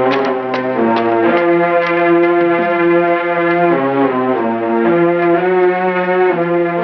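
Dramatic background film music: held chords that shift every second or so, with struck bell-like notes over them.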